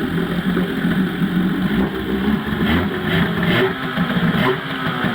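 Suzuki 5 hp two-stroke outboard motor running steadily and quietly, the engine in good working order.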